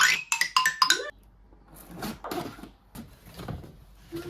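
A quick run of short electronic beeping notes that stops about a second in, followed by faint scattered clinks and knocks.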